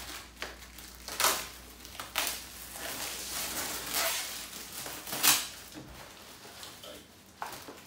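Clear plastic wrap crinkling and tearing as it is pulled off a stack of foam puzzle play mats, in several irregular crackly bursts, the loudest about five seconds in.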